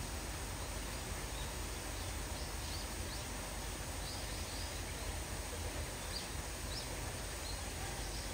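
Steady outdoor background hiss with a few faint, short, high bird chirps scattered through the middle.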